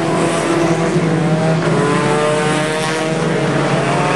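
Banger racing cars' engines running hard as they race past close by, several engine notes rising in pitch as they accelerate.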